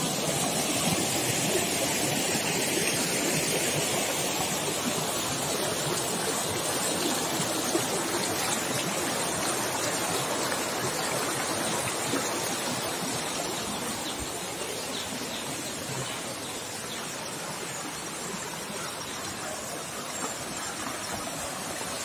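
Small rocky stream rushing and splashing over stones, a steady wash of water noise that eases a little in the second half.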